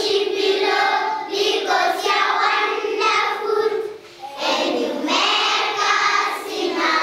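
A classroom of schoolchildren singing together in chorus, in sung phrases with a brief pause about four seconds in.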